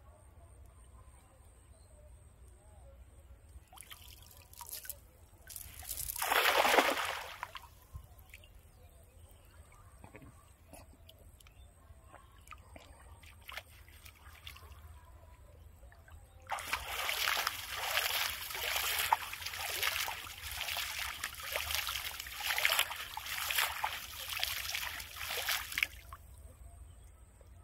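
A cast net lands on shallow water with one splash about six seconds in. From about sixteen seconds in, water splashes, sloshes and trickles steadily for about ten seconds as the net is hauled in through the water.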